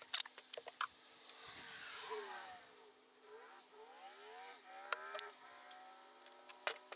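A motor vehicle passing by, its sound swelling and then fading as its pitch slides down. An engine then rises in pitch, and there are a couple of sharp clicks.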